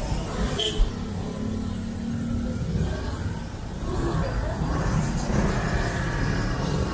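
Street traffic: vehicle engines running and passing in a steady rumble, with a sharp knock about a second in and traffic growing louder about four seconds in.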